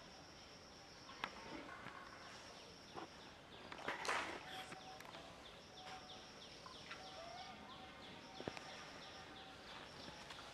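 Outdoor ambience of insects and birds: a high buzz that starts and stops in stretches of a second or two, with many short repeated chirps. A few sharp clicks and one louder brief noisy burst about four seconds in.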